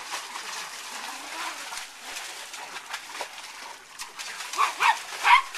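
Yorkshire terrier barking in three quick, high yaps near the end, the last the loudest, over a steady hiss of spraying water.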